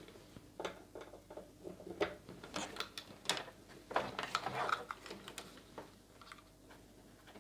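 Jack cables being handled and plugged into a Eurorack modular case: a run of irregular clicks, taps and rattles, busiest in the middle and tailing off near the end.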